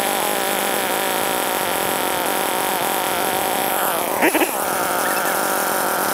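Petrol chainsaw running steadily between cuts into a log, with one quick rev about four seconds in.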